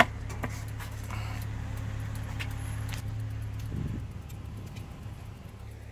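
Van engine idling with a steady low hum, with a sharp click at the start and a few light clicks and rattles. A dull thump comes about four seconds in, after which the hum is a little quieter.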